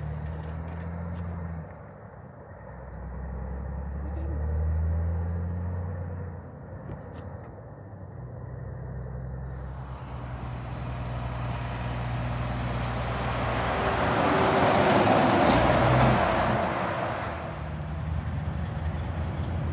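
Semi-trucks running past on the highway: a low diesel engine drone in the first few seconds, then a rising rush of tyre and road noise that peaks about fifteen seconds in and eases off.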